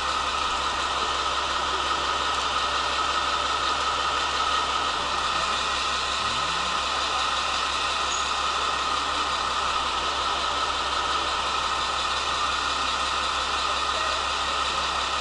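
Steady hum of a KiHa 47 diesel railcar's engine idling, even and unchanging throughout.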